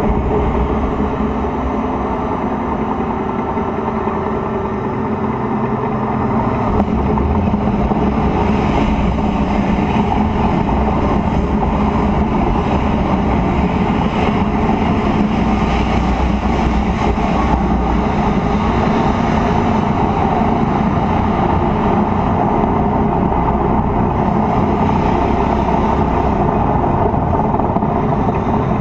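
A T-72 tank's V12 diesel engine running steadily and loudly, heard from a camera on the tank's turret.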